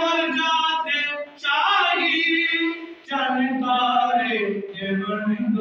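A man singing a naat unaccompanied, in long held, wavering notes, in three phrases separated by short pauses for breath.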